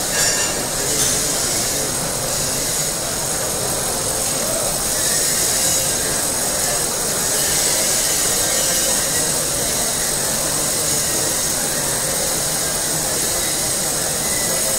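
Steady, hissy crowd noise from many people walking through a large hall, with no clear voices standing out.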